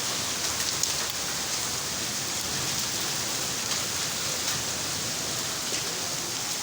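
Heavy rain pouring steadily, with a few faint sharp ticks of drops striking a surface.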